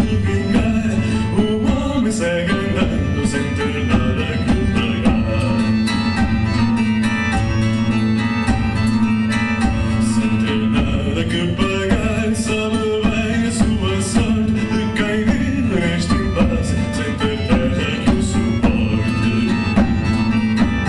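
Live acoustic band playing: plucked acoustic guitars over a drum kit with a steady beat.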